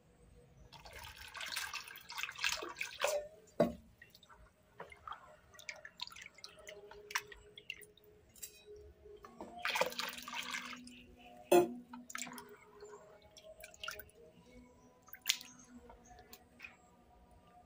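Water poured from a metal pot into a basin, splashing twice, about a second in and again about ten seconds in, each pour followed by a sharp knock, with small drips and splashes between.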